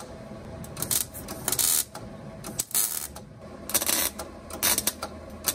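Wire-feed (MIG) welder tack-welding sheet-steel tabs onto a car hood: about five short bursts of arc noise, each under half a second, with brief pauses between them.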